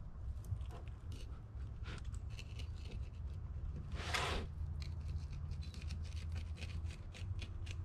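Fillet knife cutting into a sheepshead on a cleaning table: a run of small crunches and clicks as the blade works through scales, skin and bone, with one longer rasping cut about four seconds in.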